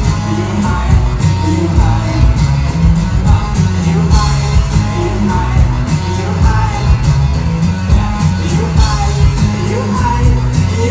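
Live rock band playing loud, with a singer over a steady drumbeat, cymbals and heavy bass, recorded on a phone from inside the crowd so the bass is boomy and the mix rough.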